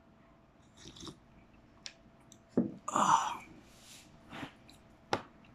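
A man sipping tea with lemon from a mug: soft sips and a breathy exhale, with two light knocks of the mug being handled and set down.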